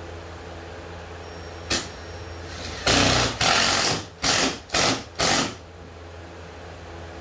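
A handheld power drill run in several short bursts against the canoe's gunwale, as the replacement vinyl gunwale is fastened on. A short click comes just before the bursts, and a steady low hum runs underneath.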